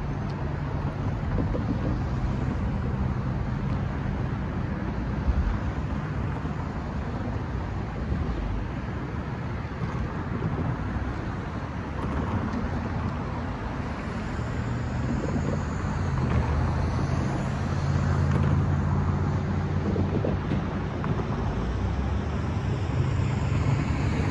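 Road traffic: cars driving past, with wind on the microphone. A low engine hum grows louder about halfway through.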